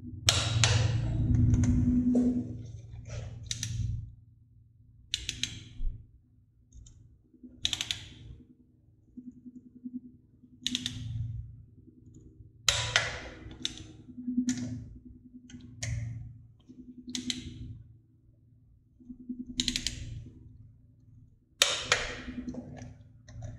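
Ratchet torque wrench clicking in short strokes, about a dozen bursts one to two seconds apart, as bolts on a motorcycle air cleaner backing plate are torqued to spec. A faint steady low hum runs underneath.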